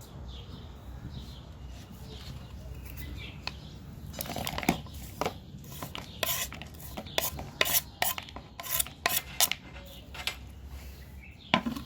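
Knife blade chopping food on a cutting board: a run of sharp, irregular knocks, a few a second, starting about four seconds in after a quieter stretch.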